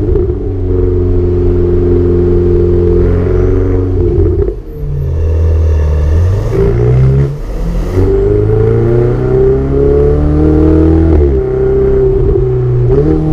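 Ferrari 488 Spider's twin-turbo V8 heard from the cockpit. It holds steady revs, drops off about four seconds in, then rises again as the car accelerates. There is a brief dip near eight seconds and another lift-off near the end before the revs climb once more.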